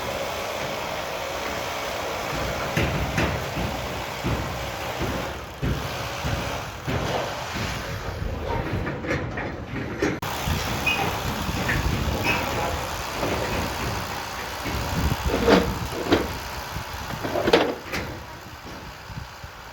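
Construction-site machinery running with a steady rumble, mixed with scattered knocks and clatter, and two louder short bangs near the end.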